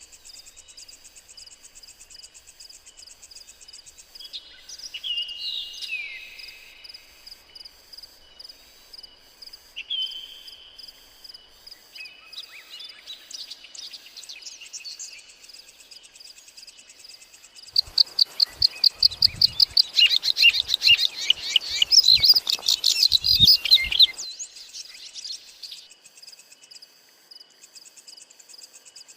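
Wild forest birds calling over a steady insect trill of crickets or cicadas. A few separate bird calls come in the first third, then a loud run of rapid, repeated chirps lasts about six seconds past the middle before the insect trill carries on alone.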